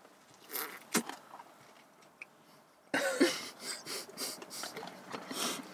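Close-up eating sounds with paper wrappers rustling. About three seconds in comes a sudden short laugh, followed by a run of breathy bursts.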